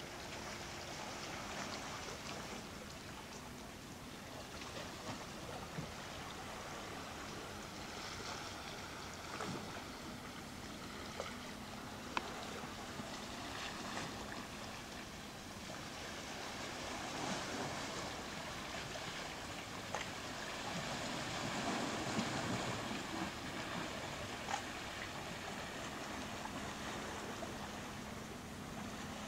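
Water swishing and lapping around a wooden canoe on calm seawater, with scattered small clicks. It swells a little twice in the second half.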